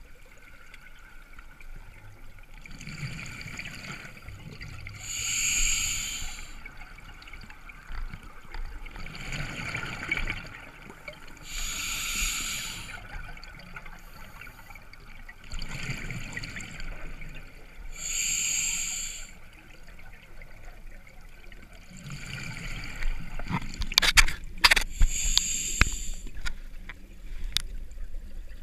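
Open-circuit scuba regulator breathing underwater: a hiss of inhalation and a burbling rush of exhaled bubbles, repeating every few seconds, with several sharp clicks near the end.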